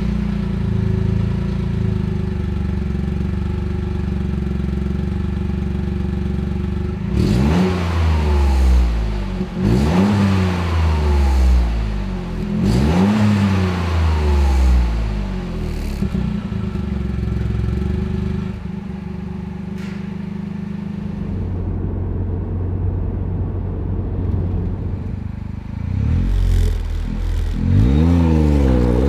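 Toyota GR Yaris's turbocharged 1.6-litre three-cylinder engine through an HKS Legamax Premium resonated GPF-back exhaust, idling steadily, then blipped with several quick revs that rise and fall about seven seconds in, settling back to idle before more revs near the end.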